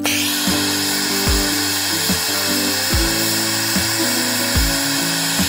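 Hand-held propane torch hissing steadily, starting abruptly, as its flame heats small hardened screwdriver tips to a blue temper colour. Background music with a steady beat plays under it.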